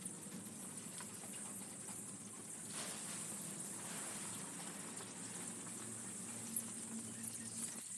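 Young broiler chicks pecking and scratching, scattered light taps and ticks over a steady low hum.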